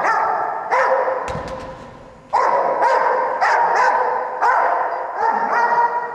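Australian Shepherd barking repeatedly in quick, pitched barks, with a brief low thump about a second in.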